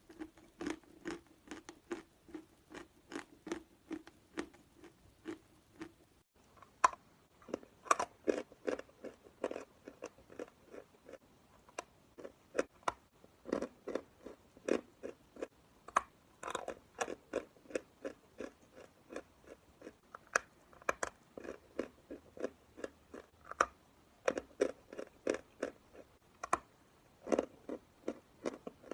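Dry chalk being chewed close to the microphone: a steady run of crisp crunches, about two a second.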